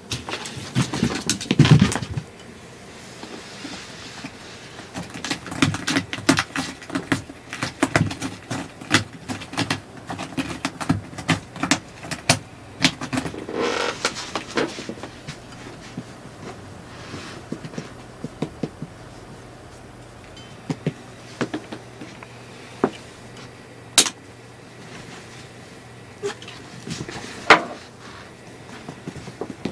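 A cat playing with a teaser wand: irregular clicks, taps and scuffs of its paws and claws on a cardboard scratcher and the floor, with a louder scuffle and thumps about a second or two in.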